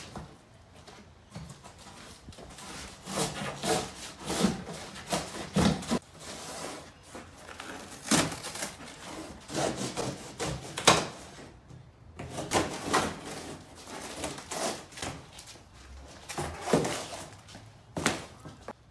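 A knife sawing and cutting through a corrugated cardboard box, with irregular scraping and rustling of the cardboard and a few sharp knocks as the box is handled and flattened on the floor.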